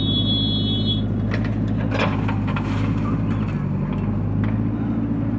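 Diesel engine of a JCB 3DX backhoe loader running steadily while it loads soil into a tractor trolley, with a high steady tone over the first second and a short clatter about two seconds in.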